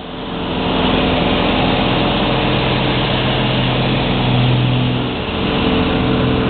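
Slingsby Firefly light aircraft's piston engine and propeller running with a steady drone, heard inside the cockpit under a constant hiss.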